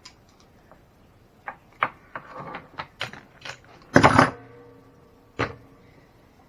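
Clicks and knocks of tools and parts being handled while taking apart an RC truck, with a louder clatter about four seconds in that rings briefly, then one more knock.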